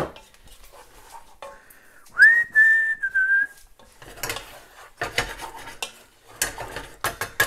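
A person whistles one short note about two seconds in: a quick scoop up to a held pitch that steps slightly down before stopping. Around it, a spoon scrapes and knocks in a heavy pot, followed by several clinks and clatters of pot and utensils near the end.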